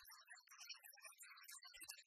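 Near silence: faint, garbled low-level sound with no clear source.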